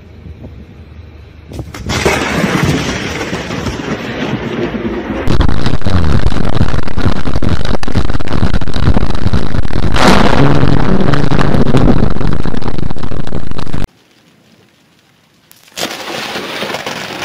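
Close lightning strikes with cracking thunder, loud enough to overload the microphone, in several recordings joined with abrupt cuts. A sudden blast about two seconds in grows louder from about five seconds, stops dead near fourteen seconds, and after a short lull another loud crack starts near the end.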